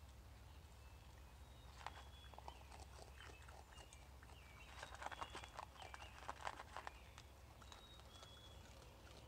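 A raccoon eating from a plastic tub: a run of faint clicky chewing and crunching that starts about two seconds in, is densest around the middle and stops about two seconds before the end.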